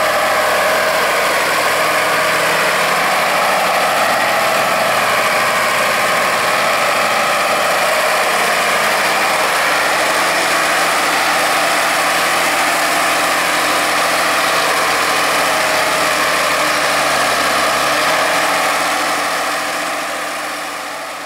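Ursus 1234 tractor's diesel engine running steadily, fading out near the end.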